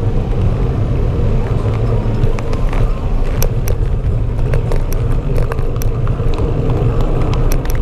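Steady low rumble of a bicycle rolling over asphalt, carried through a GoPro solidly mounted on the bike seat. Irregular sharp clicks and rattles come in from about three seconds in.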